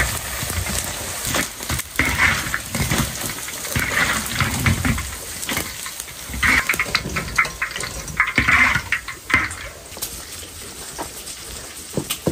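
Battered pieces frying in hot oil in a large wok, the sizzling surging in bursts every couple of seconds, with clicks of a metal strainer ladle against the wok.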